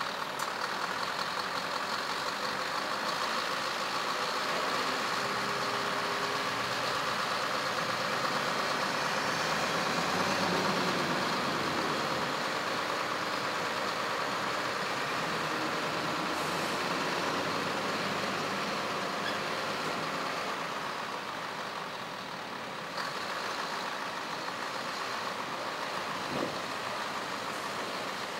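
Scania R500 V8 truck engine running steadily while its hooklift hydraulics pull a loaded container up onto the truck. The sound settles a little quieter about three-quarters of the way through, as the container comes to rest.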